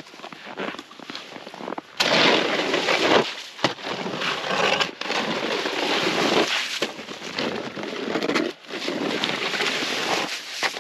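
Snow shovel scraping and scooping slush out of and around a hole in lake ice, in a series of long, crackly strokes with short breaks, starting about two seconds in and louder from then on.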